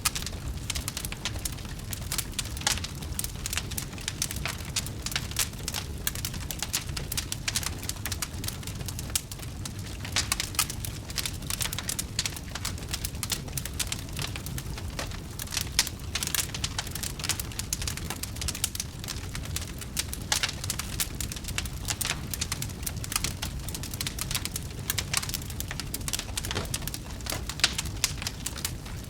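Wood fire crackling, with many sharp pops and snaps, irregular and dense, over a steady low rumble.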